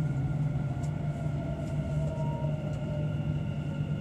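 Dubai Metro train running through a station, heard from inside the car: a steady low hum with whining tones from the drive, one of which drifts slightly down in pitch.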